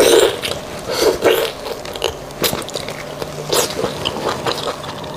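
Close-miked eating sounds of beef bone marrow: sucking and biting at the end of a marrow bone, then chewing with wet clicks and lip smacks.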